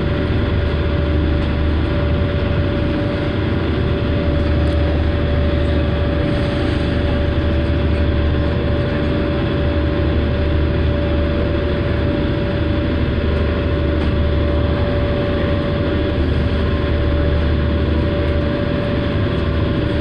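Ferry engines running steadily, heard from inside the passenger cabin: a deep rumble with a constant hum above it, under a steady rush of choppy water and spray against the hull.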